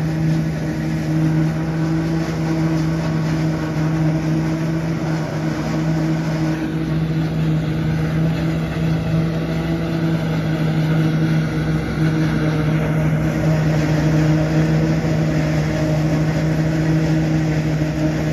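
Tractor engine working steadily under load, driving a silage harvester that cuts and chops standing maize: a constant machine drone with a strong steady hum.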